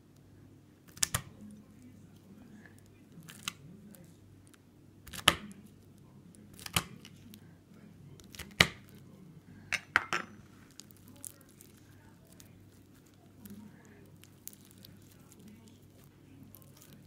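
Knife blade cutting down into bead-filled slushie slime, each cut giving a sharp, crisp crackle: about eight over the first ten seconds. After that only faint crackles as the slime is squeezed by hand.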